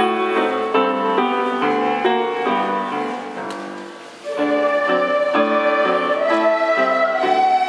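Children's recorder ensemble playing a song in unison. One phrase fades out about four seconds in, and a new phrase of long held notes starts, stepping upward.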